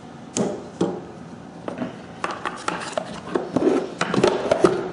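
A run of sharp clicks and knocks from micrometers and wooden cases being handled and set down in a metal machinist's toolbox. The knocks come thicker and louder toward the end as the toolbox drawers are worked.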